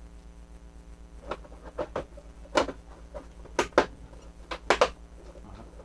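Hard plastic Playmobil castle tower pieces knocking and clicking together as they are handled and fitted, about eight sharp knocks over a few seconds, several in quick pairs.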